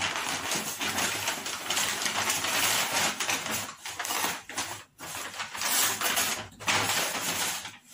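Brown kraft paper shopping bag rustling and crinkling as it is opened and handled, in several stretches broken by brief pauses.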